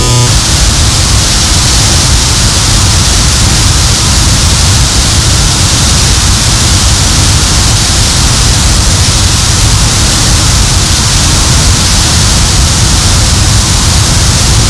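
Harsh noise music: a loud, unbroken wall of static hiss over a dense low rumble, with no beat, no pitch and no change.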